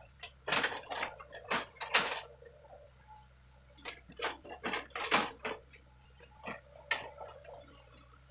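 Irregular sharp clicks and knocks, several in quick clusters, over a faint steady low hum from a distant working crawler excavator's engine.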